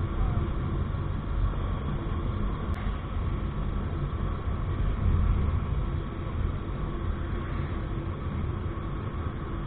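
Steady low rumble of wind and road noise from riding along a paved road at speed, with a faint constant whine under it. A single short click comes about three seconds in.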